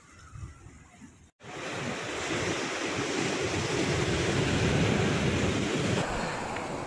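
Steady rushing of wind on the microphone and surf at a rock breakwater by the sea. It starts suddenly about a second and a half in, after a short faint stretch.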